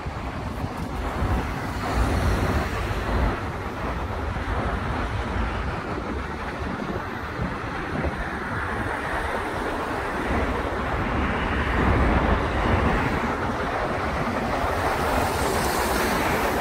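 City street ambience: steady road traffic passing along a wide avenue, with low gusts of wind on the microphone now and then.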